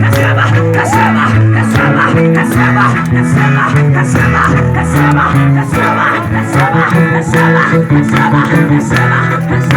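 Loud music with bass guitar, a steady beat and a sung or played melody.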